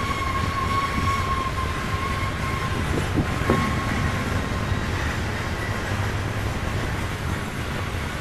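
Loaded Norfolk Southern coal hopper cars rolling past with a steady rumble of wheels on rail. A high, steady squeal fades out about four seconds in, and a couple of knocks sound around three seconds in.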